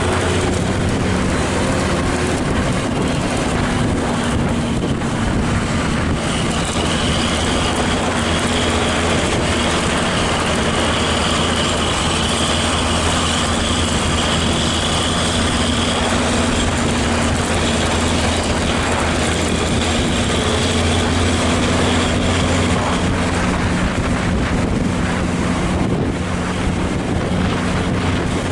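Steady drone of vehicle engines pulling uphill, with road and tyre noise and wind on the microphone. A faint high whine runs through the middle for about ten seconds.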